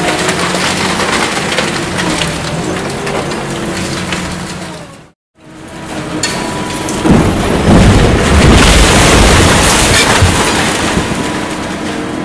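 Building demolition: concrete and debris crunching and crackling while a demolition machine's engine runs steadily underneath. After a brief cut about five seconds in, heavy rumbling crashes of falling rubble build up and are loudest for a few seconds in the middle, then ease off.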